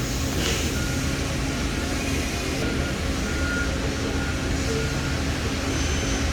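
Steady low electric-machine hum from a powered-up CNC press brake, with a few faint short high-pitched beeps scattered through it.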